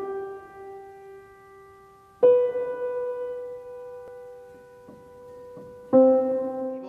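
Slow solo piano music: chords struck a few seconds apart, twice, each left to ring and fade away.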